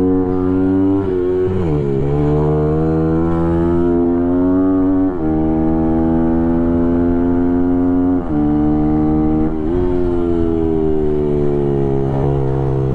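Small race motorcycle engine heard from on board the bike, running hard at high revs with its pitch climbing slowly as it accelerates, broken by about five quick drops in revs as the rider shifts or rolls off for corners.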